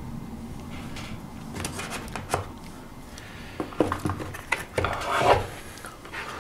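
Hands handling a DJI Ronin-SC gimbal and its parts in a foam-lined hard carrying case: scattered clicks, knocks and rubbing, starting about a second in.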